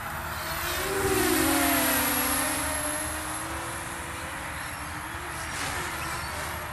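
Radio-controlled model plane's motor whining as it flies past low: loudest about a second and a half in, its pitch drops as it goes by, then it fades as the plane climbs away.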